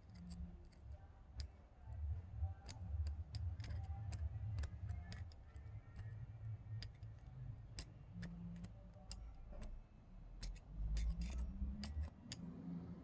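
Irregular light clicks and taps of small reel parts being handled, as a bearing is seated into a spinning reel's handle knob, over a low handling rumble.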